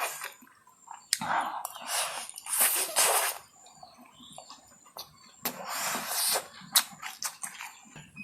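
Close-up eating sounds: chow mein noodles slurped in several hissing pulls, with wet mouth clicks of chewing in between.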